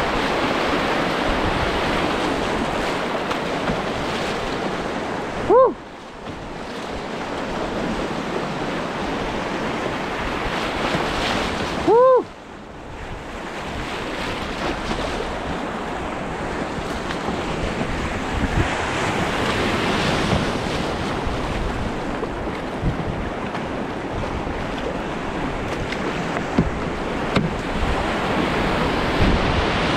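Rushing whitewater of a flooded creek rapid around a canoe running it, with wind buffeting the action-camera microphone. Twice, about six seconds apart, a short loud tone cuts through, and each time the sound drops for a moment afterwards.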